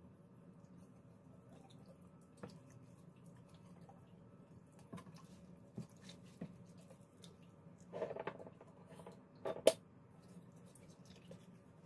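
Hands rubbing salt into a raw whole chicken in a bowl: soft, wet squishing and patting of the skin with scattered small clicks, over a faint steady hum. A louder clatter about eight seconds in and a sharp knock near the end stand out.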